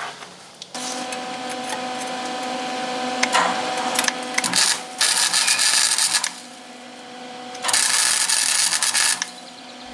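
Flux-core wire welder laying beads on sheet-metal floor pan: a steady crackling sizzle over a faint hum, in stretches with short pauses, loudest about five to six seconds in and again near the end.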